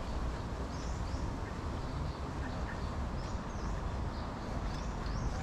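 Outdoor bird calls: a few short, high chirps over a steady low rumble of wind on the microphone.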